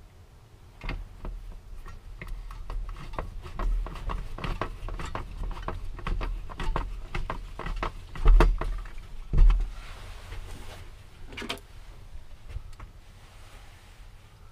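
Irregular clicks, taps and knocks of hands working on a camper van's roof skylight, with two heavy thumps about a second apart around eight seconds in.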